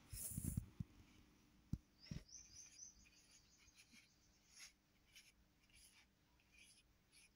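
Faint strokes and taps of a paintbrush on paper, with a few soft knocks in the first two seconds; otherwise near silence.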